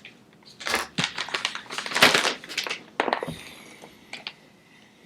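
Gift wrapping paper crinkling and crackling as a present is unwrapped, a quick run of crinkles for the first three seconds or so, then quieter with a few small rustles.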